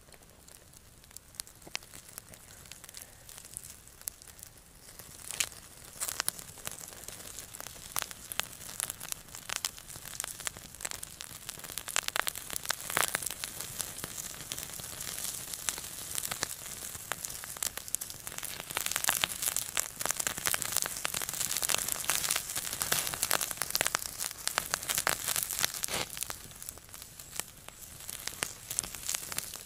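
Salo (cured pork fat) sizzling and spitting as it heats and renders, the crackling building up over the first dozen seconds and then staying busy with many small pops.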